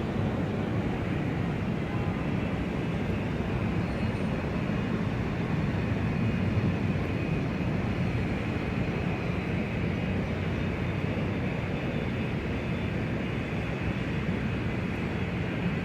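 Large airport ambience: a steady, even rumble of noise, weighted low, with no distinct events standing out.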